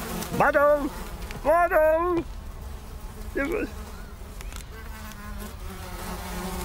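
Cartoon flies buzzing steadily, with three short hummed, wordless vocal grunts from a cartoon character about half a second in, at around one and a half to two seconds, and briefly at about three and a half seconds.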